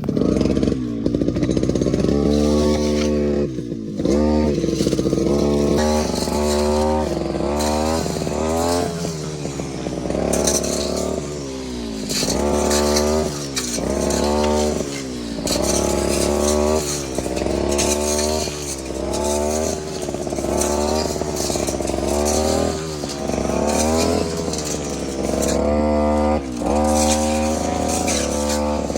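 Brush cutter engine revving up and easing off again and again, roughly once a second, as the blade is swung through thick brush.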